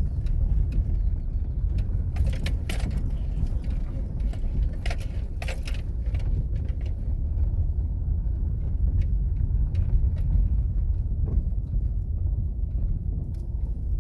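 Steady low rumble of a car driving, with short clusters of rattles and clinks about two seconds and five seconds in.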